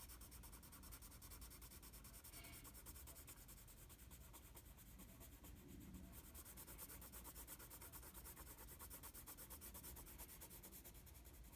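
Graphite pencil shading on paper: faint, quick back-and-forth scratching strokes in a steady rhythm as a dark area is filled in.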